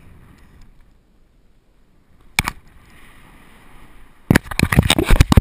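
Knocks and rubbing on a body-worn action camera riding a rope swing: one sharp knock about two and a half seconds in, then a burst of loud thumps and scuffs near the end as the swinger comes back in over the bank.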